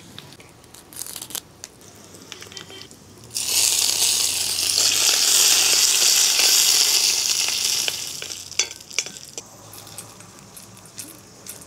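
Tempering for chutney in a black iron kadai: dried red chillies crackling softly in hot oil, then a sudden loud sizzle about three seconds in as curry leaves go into the oil, fading after a few seconds. Near the end there are a few clicks of the spoon and pan as the tempering is tipped onto the chutney.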